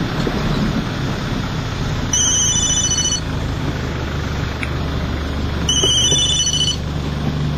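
Vehicle driving along, with steady engine and road noise. An electronic ringtone rings twice, each ring about a second long and a few seconds apart.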